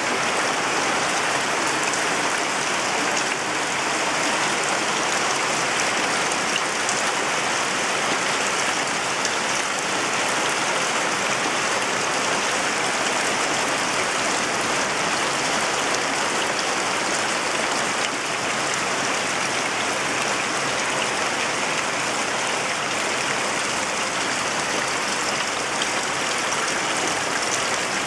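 Monsoon rain falling steadily, an even, unbroken rush with no pauses or separate events.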